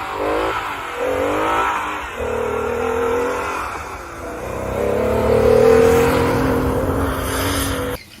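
Car engine sound effect revving up several times, the pitch rising with each rev, then a longer, louder held rev in the second half that cuts off suddenly near the end.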